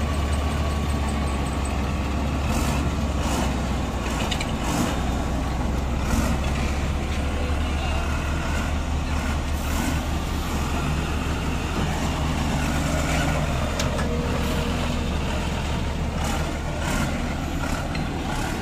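Heavy diesel engine running steadily with a deep, even drone, with several brief hisses over it.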